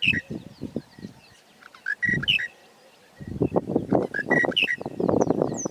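Monotonous lark singing its short whistled phrase over and over, about once every two seconds, with no variation. A rough, low background noise comes and goes under it and swells in the second half.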